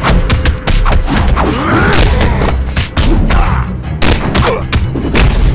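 Animated fight sound effects: a quick run of punch and kick impacts, thuds and hits in rapid succession, over background music with heavy bass.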